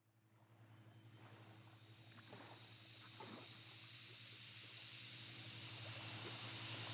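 Dusk ambience of insects chirping in a steady pulsing rhythm over a high hiss and a low steady hum, fading in from silence and slowly growing louder.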